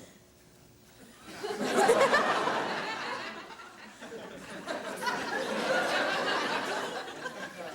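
Studio audience laughing. The laughter starts about a second in, eases off midway and swells again.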